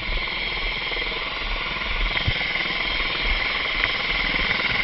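Eurocopter EC135 rescue helicopter running on the ground close by: a steady high turbine whine over the beat of the turning rotor, growing a little louder near the end.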